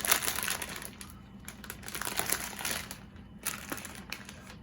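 Hissing mouth noises from someone eating painfully spicy noodles, sharp breaths and sucking through the mouth, in two noisy bursts: one in the first second and another about two seconds in.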